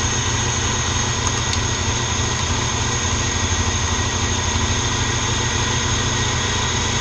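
Moskvich 2140's UZAM-412 inline-four engine idling steadily as it warms up, running without the choke.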